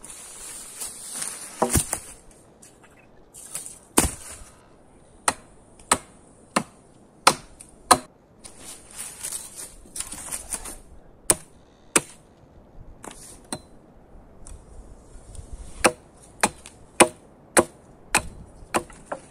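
An axe chopping wood, hewing points on the ends of wooden stakes: about fifteen sharp, irregularly spaced strikes. Dry leaves rustle between the blows.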